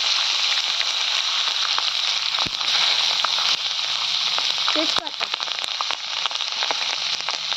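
Cumin and green chillies frying in hot oil in a kadai: a steady sizzle with scattered crackles.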